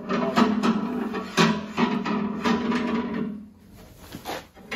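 Metal extension rod of a mortiser's stop system being slid and pulled out: a metal-on-metal sliding scrape with a steady drone, broken by several sharp clicks and knocks. It fades away about three seconds in, and a faint knock follows near the end.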